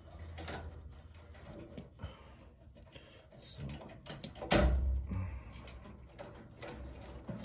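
Handling of furnace wiring at the control board: faint rustling and small clicks of wires and connectors, with one sharp, louder knock about halfway through.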